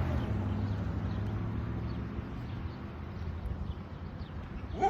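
A vehicle engine's low hum fading out, then near the end a dog gives one short bark.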